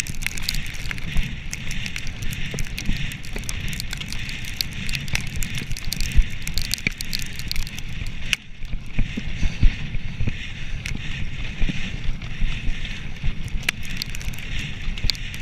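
Mountain bike rolling fast over a dirt forest trail: a steady rumble of the tyres on the ground, with many small clicks and rattles from the bike. It goes briefly quieter a little past halfway.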